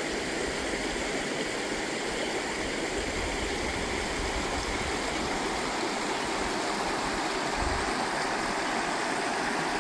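Shallow river rushing over stones in a rocky rapid, a steady wash of running water.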